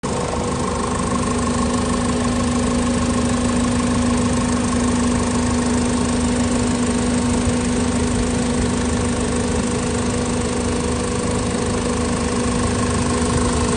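Mercedes-Benz Sprinter 517 CDI diesel engine idling steadily, heard from the open engine bay, with an even pitch and no revving.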